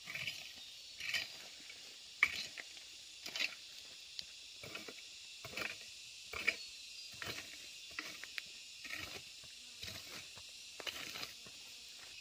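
Repeated scraping strokes of a hand garden tool working weeds and soil, about one a second, over a steady high insect drone.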